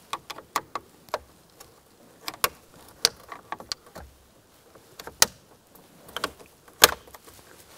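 Hard plastic dashboard switch panel and trim clicking and snapping as it is pressed and pried into its clips with a metal pick: a series of sharp clicks and taps, the two loudest snaps in the second half.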